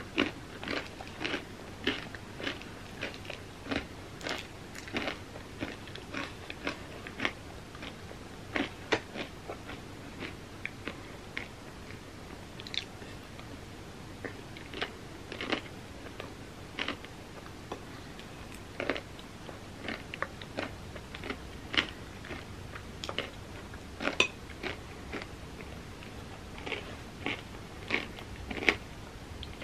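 Close-miked eating of a vegan chocolate peanut butter ice cream sundae: chewing with irregular wet mouth clicks and smacks, and occasional taps of a metal spoon against a glass bowl.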